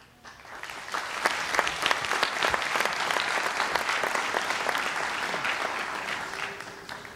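Audience applauding: the clapping swells within the first second, holds steady, and fades away near the end.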